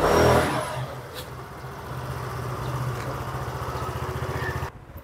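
Motor vehicle engine running steadily while riding along, with road and traffic noise. The sound cuts off suddenly near the end.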